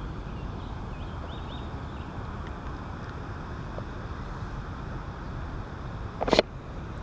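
Wind noise on the microphone outdoors, steady through, with one brief sharp sound near the end.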